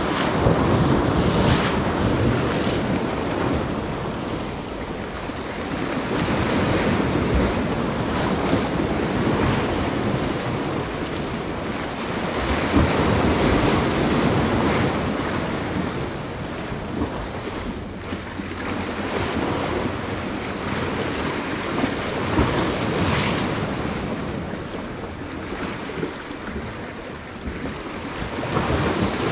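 Ocean surf surging and breaking, with strong wind buffeting the microphone; the noise swells and eases every few seconds.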